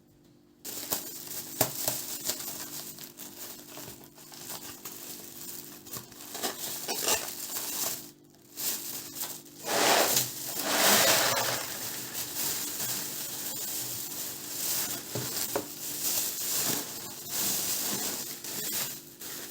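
Crinkling and rustling of a plastic bag and packaging being handled, with small clicks and knocks of objects set down. The crinkling is loudest for a couple of seconds about ten seconds in. A faint steady hum runs underneath.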